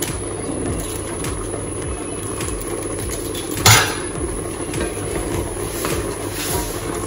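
Wooden spatula stirring pieces of goat meat in a stainless steel pot, with faint scrapes and one sharp knock of the spatula against the pot a little over three and a half seconds in, over a steady low hum.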